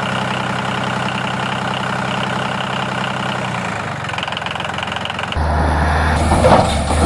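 Excavator engine sound running steadily at idle. About five and a half seconds in it turns louder and deeper, as if working under load.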